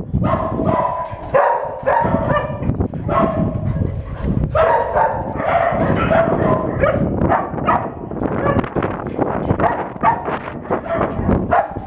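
Several kennel dogs barking in a dense run, mixed with drawn-out high-pitched whining, strongest in the first seven seconds.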